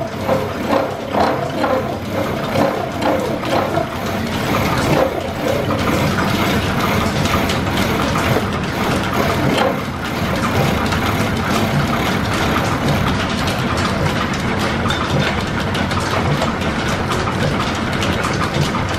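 Horizontal milling machine cutting a steel block with an arbor-mounted milling cutter: a steady mechanical run of the cutter teeth biting the metal, pulsing in loudness for the first few seconds and then running evenly.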